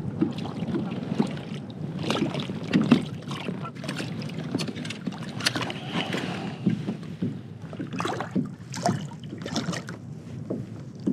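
A hooked crappie splashing at the surface beside a kayak as it is brought in by hand, with irregular knocks and rustles of handling against the boat and wind on the microphone.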